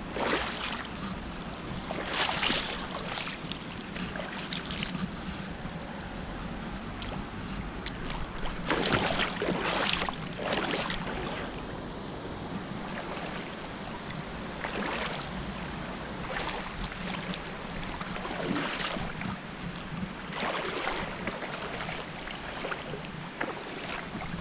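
Wading through a shallow river: water sloshing and splashing at irregular steps over the steady rush of the flowing stream.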